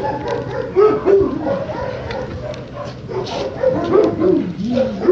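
A dog whining and yipping in short cries that bend up and down in pitch, a cluster about a second in and more from about four seconds in.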